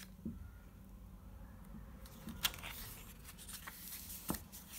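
Paperback picture book's page being turned by hand: a soft paper rustle with a few short taps.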